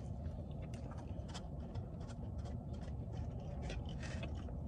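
Eating sounds in a car: scattered small clicks and scrapes of utensils and takeout containers, with chewing, over a steady low rumble in the cabin.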